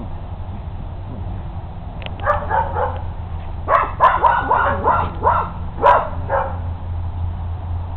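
Collie puppies barking in short, high yaps while playing: a few about two seconds in, then a quicker run of about half a dozen.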